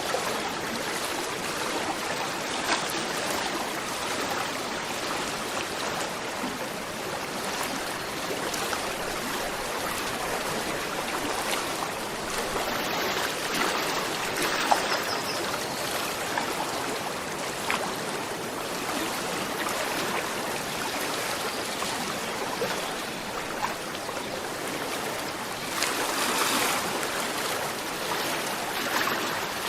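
A gentle river flowing steadily over stones, a continuous babble with small splashes and trickles.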